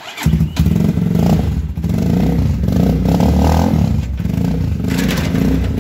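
Sport motorcycle with an aftermarket slip-on exhaust starting up about a quarter second in and then running loudly, with a few swells of throttle.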